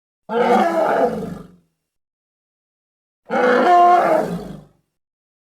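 Film sound effect of a giant gorilla roaring: two separate roars of about a second and a half each, pitched and wavering, with dead silence between them.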